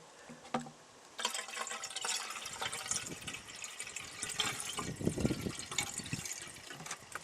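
Nitro fuel being poured into a lawnmower's fuel tank, starting about a second in and running on as the tank fills up.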